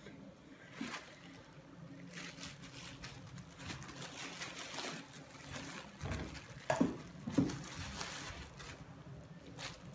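Wet handling sounds with light splashing and plastic rustling as hands work fish over a basin of water, with two sharper, louder sounds about seven seconds in.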